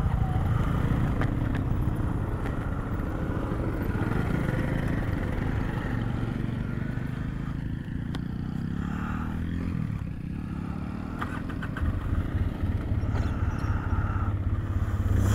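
Jinling 250 cc ATV engine running under way, its note rising and falling a few times with the throttle.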